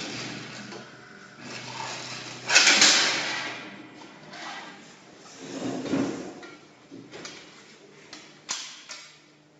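CNC aluminium-coil bending machine working through its cycle: mechanical sliding and clunking, with a loud hiss about two and a half seconds in, a lower surge about six seconds in, and a sharp click near the end.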